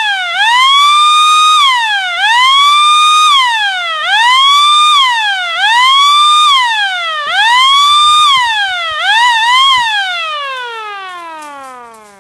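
Small electric air raid siren spun up and let coast again and again, its tone rising, holding, then falling about every two seconds. Near the end it is left to wind down in one long falling tone that fades away.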